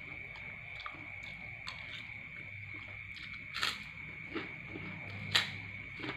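Mukbang eating sounds: small ticks of a fork on a paper food wrapper and chewing. Two sharp crunches come about three and a half and five and a half seconds in as a crisp krupuk cracker is bitten. A steady high-pitched tone runs underneath.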